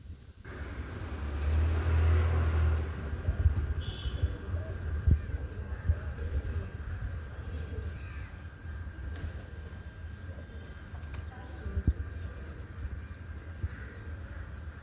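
Cricket chirping in a steady, even rhythm of about two high chirps a second, starting about four seconds in, over a low rumble.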